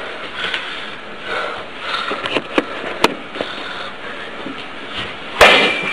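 A few small clicks and rustles, then near the end a loud hit against a metal pipe, a shin kick, followed by a brief high metallic ring.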